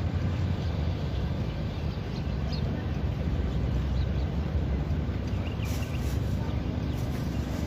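Steady low rumble of outdoor background noise, with a few faint, short high chirps and clicks scattered through it.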